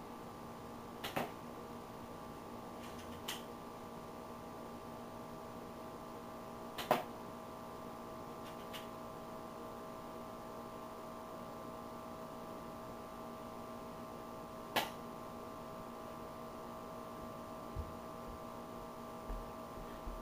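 Steady mechanical hum of an air conditioner, with about five sharp ticks from the airsoft shooting spaced seconds apart. The loudest tick comes about seven seconds in.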